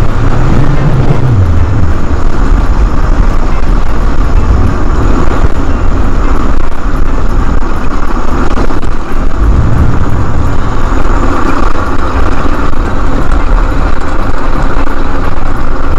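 High-speed mobility scooter riding over a rough park road: a loud, steady rumble of the ride, swelling twice in the low end, just after the start and again about nine seconds in.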